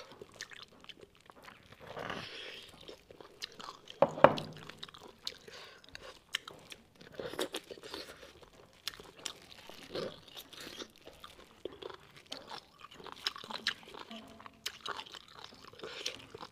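Close-miked chewing of braised beef bone marrow in spicy sauce: irregular wet crunches, smacks and mouth clicks, with one loud bite about four seconds in.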